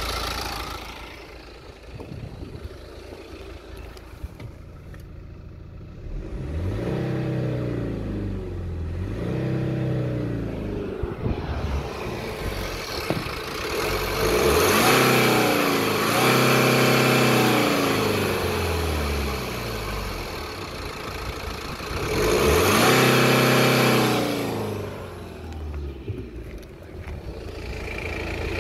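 BMW F30 316d's 2.0-litre four-cylinder turbodiesel idling, then revved and let fall back four times: two short blips, then two longer revs held for a few seconds each.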